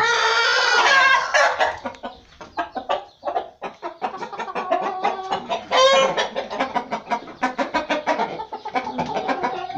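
Aseel (Indian game) roosters calling in the coop: a long drawn-out call in the first second, another shorter one about six seconds in, and rapid clucking in between.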